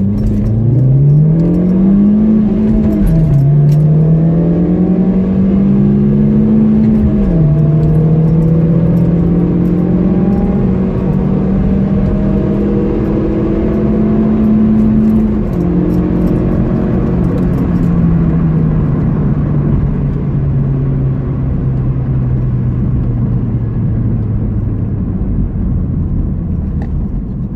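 Opel Corsa engines at full throttle in a drag race. The engine note climbs from the launch and drops at gear changes about 3, 7 and 15 seconds in, then falls slowly and gets quieter as the car backs off.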